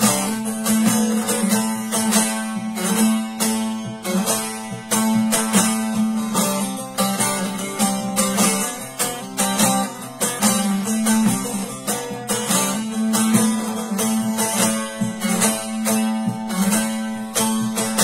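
Bağlama (saz) played solo: a quick run of plucked and strummed notes over a steady low drone from the open strings.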